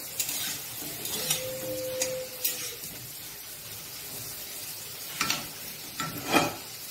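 Potato wedges sizzling in hot oil in a kadai, with a metal spatula scraping and knocking against the pan several times as they are turned. The strokes are loudest near the end.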